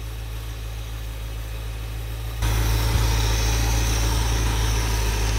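1962 Plymouth's 361 V8 idling steadily, its idle made smooth by freshly adjusted timing and idle mixture screws. The engine sound gets louder about two and a half seconds in.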